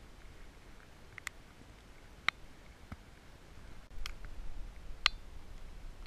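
Sparse raindrops ticking sharply on the camera at irregular intervals, over a low rumble of wind or handling that rises about four seconds in.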